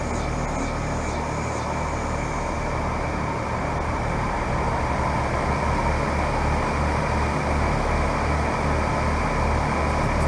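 2017 3-ton Carrier Comfort heat pump's outdoor unit starting up in cooling mode: a steady compressor hum with the condenser fan running, growing slightly louder as it comes up to speed.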